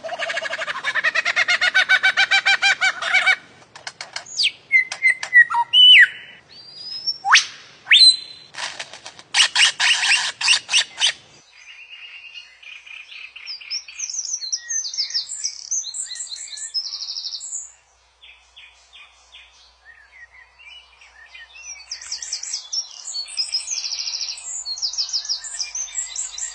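Songbird song: a loud, varied run of rich whistles, quick upward glides and rapid trills. About eleven seconds in it switches abruptly to a quieter, higher series of chips and buzzy trills.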